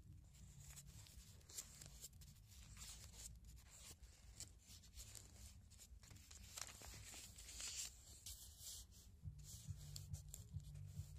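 Faint rustling and soft flaps of paper as the pages of a printed book are turned, with a louder flurry of page flips about two-thirds of the way through, over a low steady hum.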